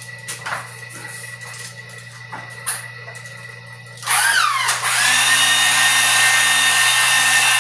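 A powered wire-stripping machine's motor starts up about four seconds in, its pitch dipping and rising for a moment, then runs with a steady high whine. Before it, a few light clicks.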